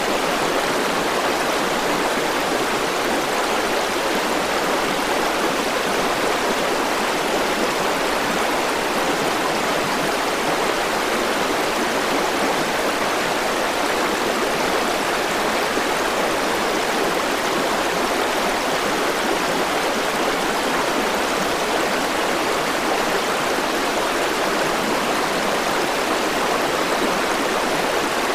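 River water flowing over rocks, a steady rushing and babbling that stays even throughout.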